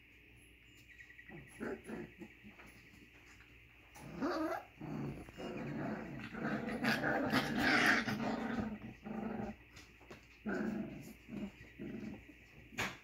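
Several doodle puppies play-growling and yipping while they wrestle. The growling is loudest in a long tangle in the middle, with one sharp knock near the end.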